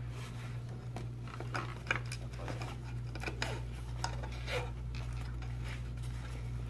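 Handling sounds from a hard plastic video magnifier being settled into a padded fabric carrying case: scattered soft taps, clicks and rubbing, over a steady low hum.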